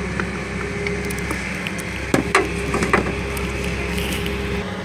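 Steady low mechanical hum, with a few sharp clicks and knocks about two to three seconds in.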